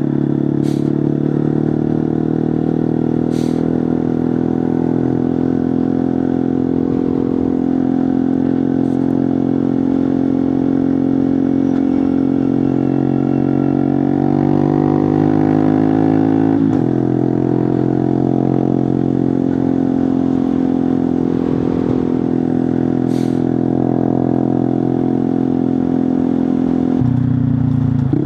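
Honda Monkey 125's single-cylinder four-stroke engine running through a Scorpion titanium exhaust with the baffle out, heard from the bike while riding. The engine note is steady, climbs in pitch as the bike accelerates, drops suddenly about halfway through, and drops again near the end.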